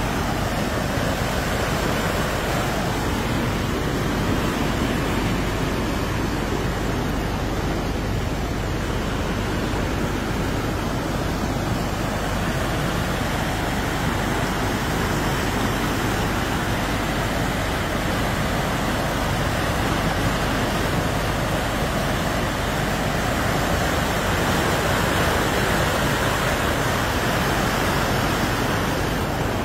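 Fast-flowing floodwater rushing steadily, a continuous rush of water.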